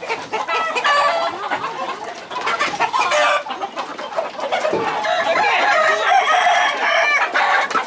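Many caged roosters crowing over one another, with clucking between the crows; the calls overlap all through, with long drawn-out crows in the second half.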